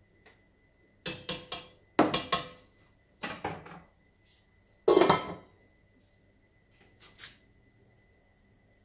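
Kitchen utensils and dishes clinking and clattering in four short bursts of several clinks each, the loudest about five seconds in, then a faint clink or two near the end.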